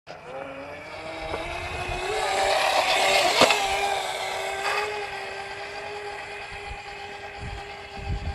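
Small electric stand-up scooter's motor whining as it rides past on asphalt. The pitch rises over the first couple of seconds as it speeds up and then holds steady. The whine is loudest with a sharp click about three and a half seconds in as it passes close, then fades as it moves away.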